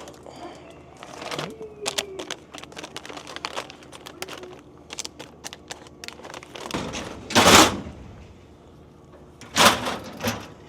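Handling noise at a vending machine during an inventory check: many small clicks and knocks of packages and machine parts, with two loud brief scraping rushes, one about two-thirds through and one near the end.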